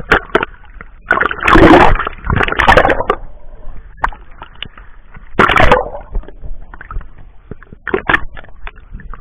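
Sea water splashing and sloshing as people play in it: a run of short splashes, the biggest coming about a second in, again near three seconds and about five and a half seconds in.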